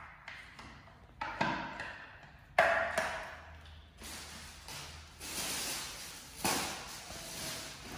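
A series of about six sharp knocks and taps, each ringing or rustling briefly before fading, the sharpest about two and a half seconds in.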